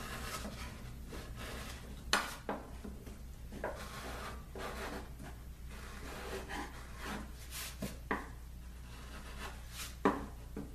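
Hand chisel scraping and paring wood inside a routed mortise, with a few sharp taps and clicks of the tool against the board, the loudest about two seconds in and near the end.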